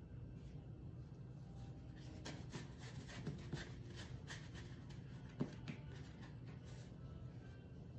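Faint scratchy rubbing and light taps of a brush being worked on a paper-plate palette, a loose series of short strokes with one sharper click about five seconds in, over a low steady hum.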